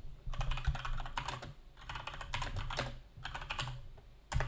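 Typing on a computer keyboard: quick runs of keystrokes separated by short pauses, with one louder key press near the end.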